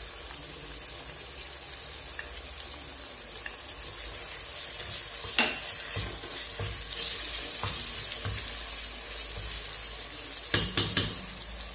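Lamb, onions and tomato paste sizzling steadily in hot oil in a stainless steel pot while a wooden spoon stirs them. There is one sharp knock of the spoon against the pot about halfway through and a few more near the end.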